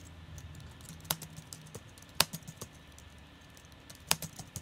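Typing on the keyboard of a white MacBook: uneven keystrokes, a few of them sharper and louder than the rest.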